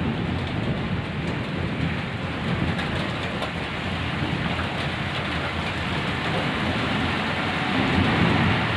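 Steady rain pouring down, with a low rumble of thunder underneath that swells near the end.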